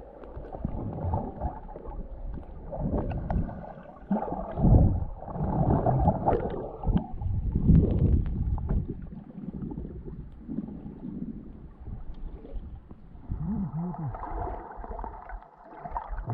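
Muffled sea water sloshing and gurgling, surging up and down irregularly every second or two.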